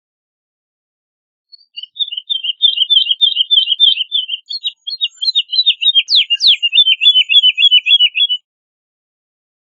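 Woodlark singing: one long phrase of rapid, evenly repeated high fluty notes starting about a second and a half in and lasting about seven seconds, with a couple of quick falling notes partway through.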